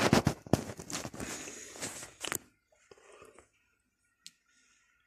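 Shuffling footsteps and the rub and knock of a hand-held phone being moved for about two and a half seconds. Then near silence, broken by a single click.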